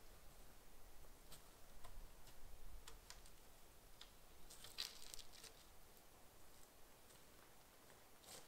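Near silence broken by faint, scattered clicks and ticks, with a small cluster of them about five seconds in.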